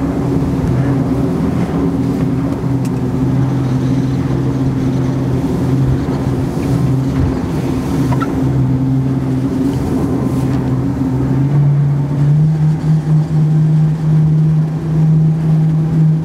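Twin 450 hp Mercury Racing V8 outboard engines running steadily at cruising speed, heard from the helm of the open boat. About twelve seconds in, the engine note steps up to a higher pitch and holds there as the throttle is opened.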